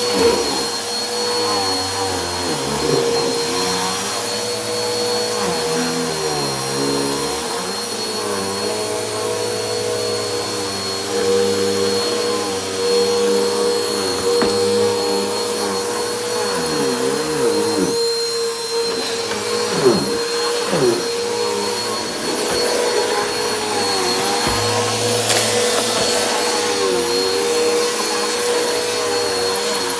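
Helix Turbo upright vacuum cleaner running on carpet with a steady motor whine. The pitch of its airflow wavers and dips as the nozzle moves, and there is one sharp click about two-thirds of the way in.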